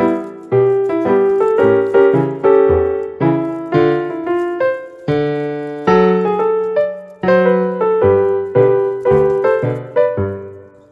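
Background piano music: an unhurried melody of single notes and chords, each struck and left to fade.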